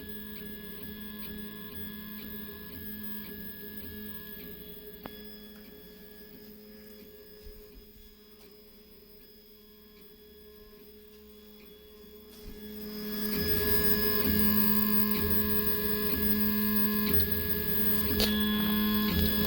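Stepper motors of a home-made RepRap 3D printer (NEMA 17 motors on DRV8825 drivers) whining in steady pitched tones as the printer moves. The whine fades to a quieter stretch in the middle and gets louder again about two-thirds of the way through.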